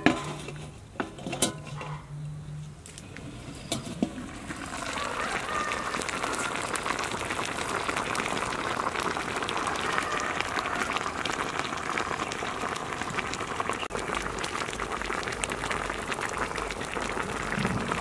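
A metal lid clanks onto a large aluminium wok, with a couple more knocks, then the liquid under the steaming fish comes to a steady bubbling boil about four seconds in.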